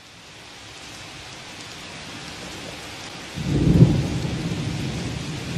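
Steady rain hiss swelling in, then a rumble of thunder breaking in about three and a half seconds in and rolling on under the rain.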